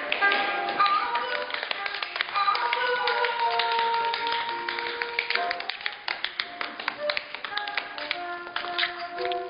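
Tap shoes striking a wooden stage floor in rapid rhythmic runs over blues music with held melodic notes.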